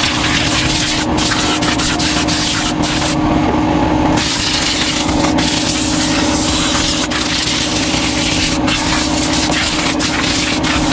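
New air compressor running with a steady motor hum, while compressed air hisses from a blow gun drying wet parts. The hiss cuts out for about a second, about three seconds in.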